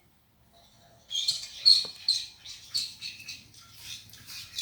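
Slime being mixed with activator: wet squelching and sticky clicking, short irregular squishes about two or three a second, starting about a second in.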